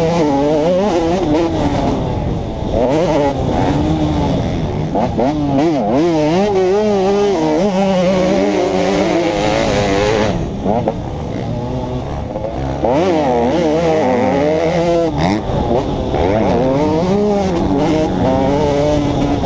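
2011 KTM 150 XC's single-cylinder two-stroke engine under riding load, revving up and down again and again as the throttle is worked through the gears. About halfway through it drops lower and quieter for a couple of seconds, then climbs again.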